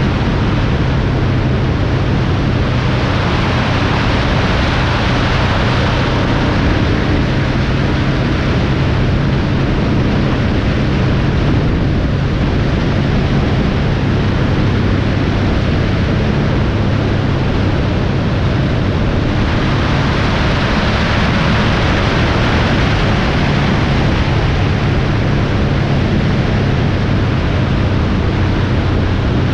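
Vehicle travelling at highway speed: loud, steady wind and road noise over a low engine hum.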